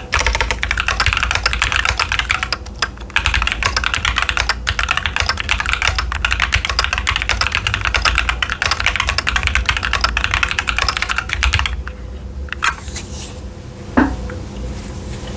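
Fast, continuous typing on a Keychron Q10 mechanical keyboard with TTC Chaotic Panda switches and Cherry-profile PBT keycaps, a dense stream of key clacks. The typing stops about twelve seconds in, leaving a few scattered keystrokes and one sharper click near the end.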